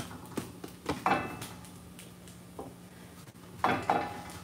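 A spatula knocking and scraping against a cast-iron skillet of frying shredded potatoes, with about four separate knocks, over a steady low hum.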